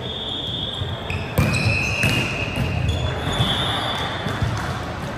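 Indoor volleyball play in a large sports hall. A volleyball is struck with a sharp smack about one and a half seconds in, with a few lighter knocks after it, and sneakers squeak on the hardwood court in several long, high squeals.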